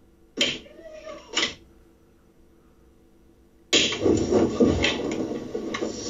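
Muffled, low-quality phone audio recording played back: a short sound about half a second in with a brief wavering tone, then from just under four seconds in a dense scratchy noise with scattered clicks.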